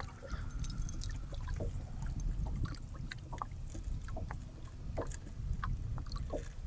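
Small knocks and clicks on a boat, over a steady low rumble and light water sounds.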